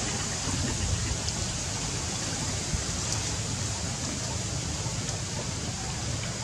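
A steady, even hiss of outdoor background noise with a flickering low rumble underneath and a few faint ticks; no distinct animal calls.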